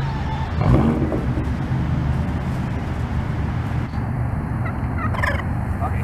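Wild turkey calling twice, a loud rattling call just under a second in and a shorter one near the end, over a steady low traffic hum.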